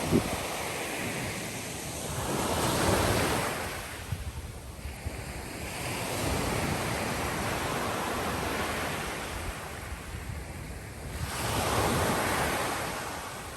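Sea waves breaking and washing on the shore, the surf swelling to a louder crash about three seconds in and again near the end, with wind buffeting the microphone.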